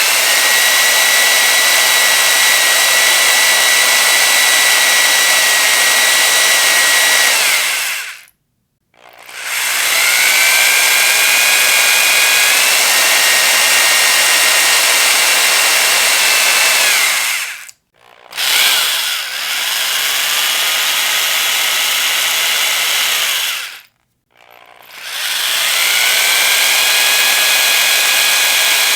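Electric power drill running in four long bursts of about six to nine seconds each. Its high whine rises as the motor spins up, then holds steady, and it cuts out briefly three times between bursts.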